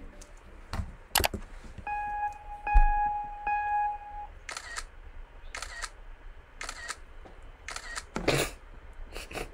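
Mac Photo Booth taking a four-photo burst: a click, then three countdown beeps, then four camera-shutter sounds about a second apart.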